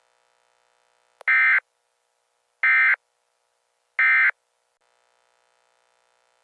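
Three short bursts of Emergency Alert System SAME digital data tones, each about a third of a second long and about a second and a half apart: the end-of-message code that closes an EAS alert.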